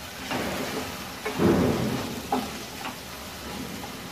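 Onions and ginger-garlic paste sizzling in hot oil and ghee while a wooden spatula stirs them, knocking and scraping against the pan a few times, loudest about one and a half seconds in.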